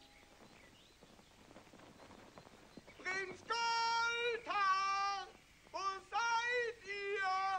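Near quiet for about three seconds, then a high girl's voice sings a tune in short held notes with brief breaks between phrases.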